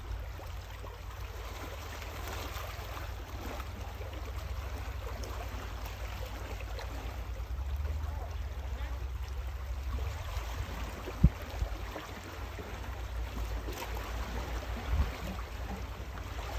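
Steady noise of water lapping and wind, with a low rumble throughout and a single sharp knock about eleven seconds in.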